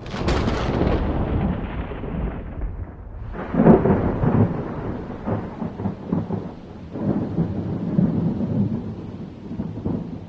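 Thunderstorm: a sudden crack of thunder that rolls away over a few seconds, then further rumbles of thunder about 4, 5 and 7 seconds in, over a steady hiss of rain.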